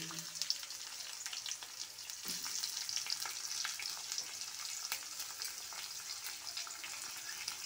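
Freshly added sliced onions sizzling in hot oil with cumin seeds and green chillies, with a steady frying hiss dotted with small crackles.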